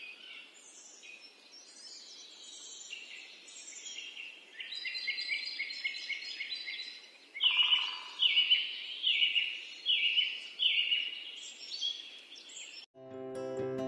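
Several birds chirping and singing over a faint steady hiss. From about halfway, one bird repeats a loud, short phrase roughly every 0.7 s. Near the end the birdsong cuts off and gentle acoustic guitar music begins.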